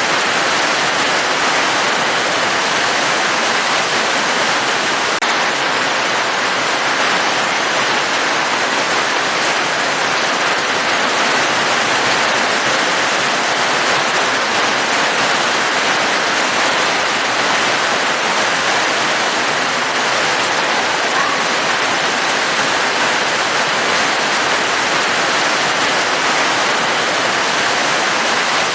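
Steady, even hiss of heavy rain falling, with no breaks or separate drops standing out.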